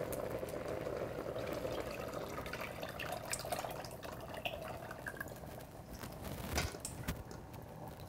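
Thinned groundnut (peanut) paste pouring from a stainless steel bowl through a mesh strainer into a steel pot: a soft liquid trickle and drip, with a few light knocks of metal on metal about two thirds of the way in.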